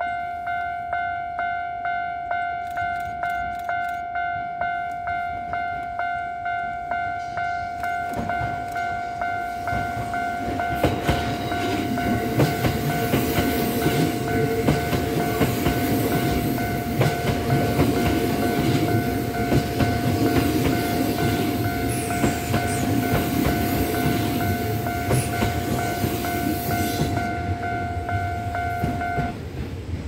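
A railway level crossing's warning bell dings rapidly and steadily while a Kintetsu 5820 series electric train approaches and passes close by. About ten seconds in, the wheels clatter loudly over the rails, and the noise fades as the train clears. The bell stops near the end.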